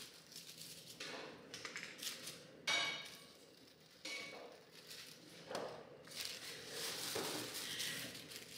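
Tissue-paper honeycomb decorations rustling and crinkling as they are opened out by hand, in several bursts, with one sharp click a little under three seconds in.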